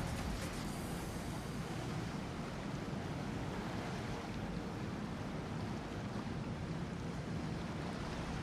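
Steady wash of choppy bay water and boat wakes, with a low, even hum of a motor yacht's engines cruising past.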